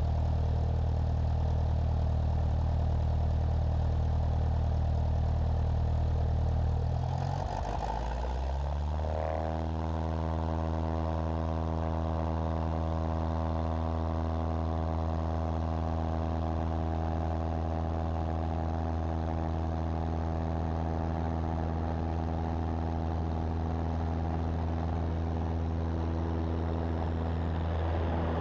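Cessna 172's piston engine and propeller running, heard from a camera on the wing. The engine speed rises about a third of the way in, then holds at a steady higher drone.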